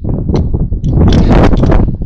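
Blizzard wind gusting hard against the microphone, a loud rumbling buffet that peaks about a second in.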